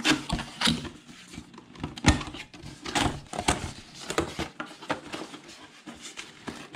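Cardboard packaging being opened and handled: flaps and an inner cardboard insert scraping and rustling, with scattered knocks and one sharper thump about two seconds in.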